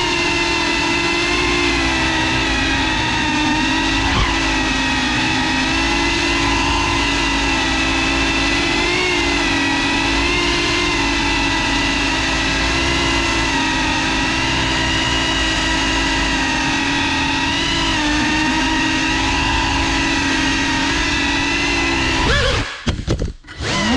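GEPRC FPV drone's brushless motors and propellers buzzing steadily in flight, the pitch wavering a little with throttle. Near the end the buzz cuts out and comes back several times in quick throttle chops.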